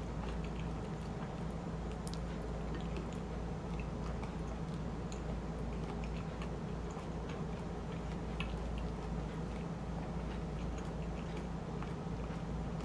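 Close-miked chewing of shrimp chili and rice: small, irregular wet clicks from the mouth, over a steady low hum.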